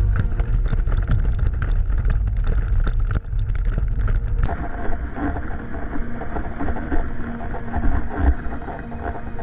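Quad bike engine running with wind buffeting the microphone; about four and a half seconds in the sound cuts abruptly to a duller, more muffled engine sound.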